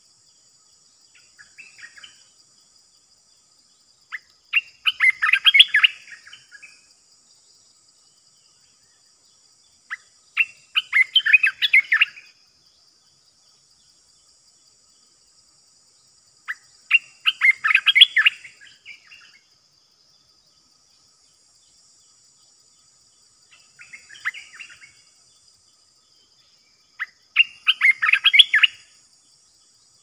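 A bulbul, the decoy bird, singing five short quick phrases about six seconds apart, the first and fourth softer. A faint, steady, high insect whine runs underneath.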